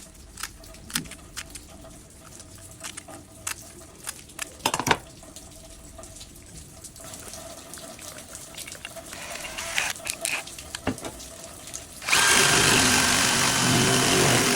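Scattered clicks and knocks of metal parts being handled, then about twelve seconds in a power drill starts and runs steadily, drilling through a grinder disc held in a jig.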